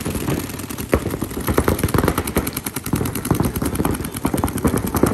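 Paintball markers firing rapidly, many shots overlapping into a dense, steady stream of sharp pops.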